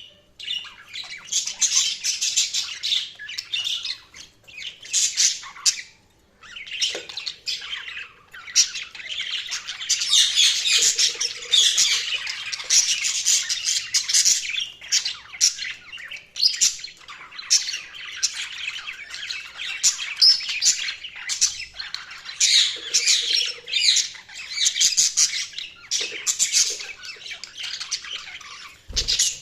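Budgies (budgerigars) chirping and warbling in a rapid, continuous chatter with sharp squawks, pausing briefly twice in the first six seconds.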